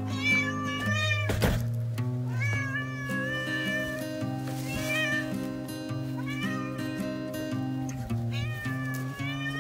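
A tabby cat meowing loudly five times, about every two seconds, each call rising and falling in pitch: a cat demanding food.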